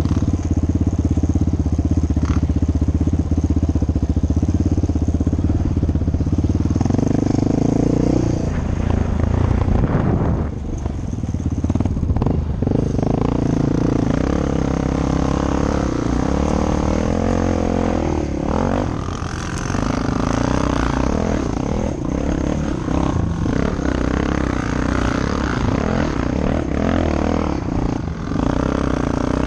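ATV (quad) engine running under the rider, at a steady pitch for about the first seven seconds, then revving up and down repeatedly with throttle changes and shifts.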